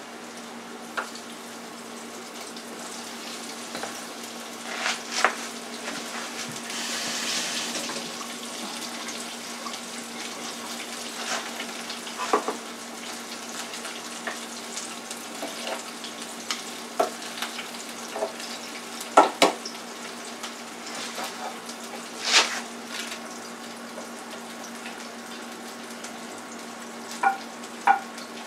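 Battered green pepper rings frying in a Farberware countertop deep fryer: a steady sizzle of hot oil that swells for a second or so about seven seconds in as a piece goes into the oil. Over a low steady hum, with scattered clicks and taps of utensils against bowls and plates.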